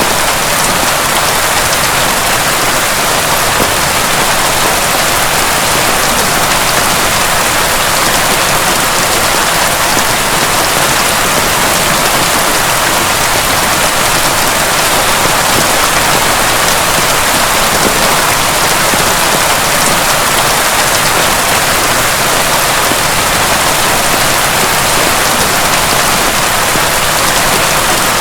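Heavy rain falling steadily, a dense, even hiss of drops with no thunder or gusts.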